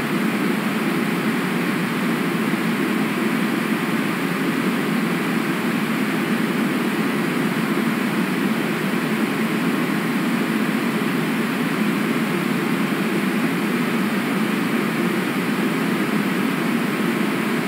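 Steady, unbroken rushing of river water, an even noise with no change in level.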